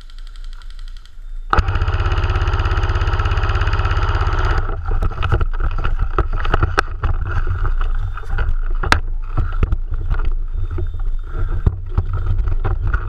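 Airsoft electric gun firing a long full-auto burst, starting suddenly about a second and a half in and lasting about three seconds as an even, rapid rattle of shots over the gearbox motor. It is followed by scattered irregular knocks and clicks.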